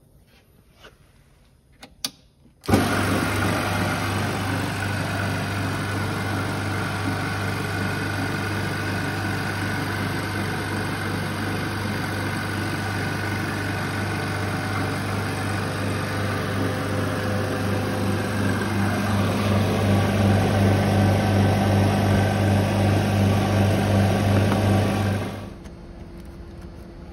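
Refrigerant recovery machine being started after a couple of clicks, then running steadily with a deep mains hum while it pulls the refrigerant out of the air conditioner. It gets a little louder in the last few seconds and cuts off suddenly near the end.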